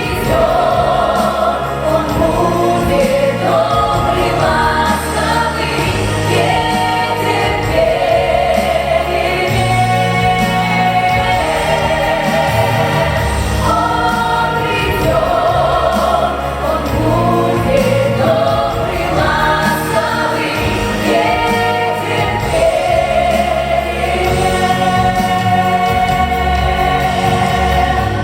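A vocal ensemble singing in harmony over a backing track with a steady bass and beat.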